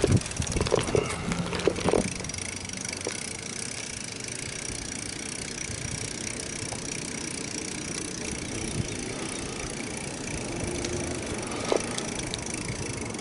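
Bicycle being ridden along a concrete sidewalk: steady rolling noise from the tyres and the ride, with a few clicks and knocks from the bike in the first couple of seconds.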